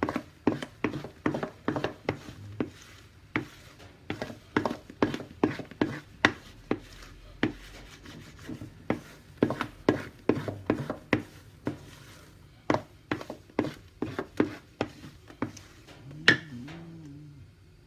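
Wooden spatula knocking and scraping against a stainless steel mixing bowl as thick castella batter is folded, in rhythmic strokes about two to three a second. One louder knock comes near the end.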